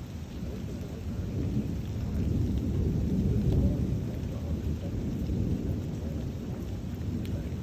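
Rolling thunder rumbling low during a thunderstorm, swelling about two seconds in and easing off after the middle, with rain hissing steadily underneath.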